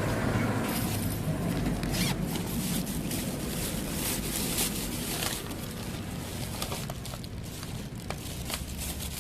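A bag zipper being pulled, with rustling and handling of items being packed.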